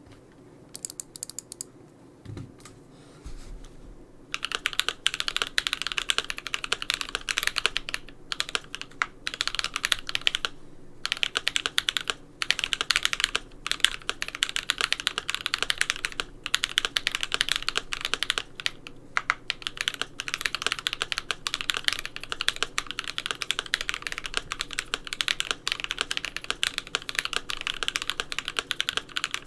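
Typing on a GMMK Pro mechanical keyboard with lubed Creampaca linear switches, a polycarbonate plate and PBT keycaps. A few scattered keystrokes at first, then fast, continuous typing from about four seconds in, broken by brief pauses.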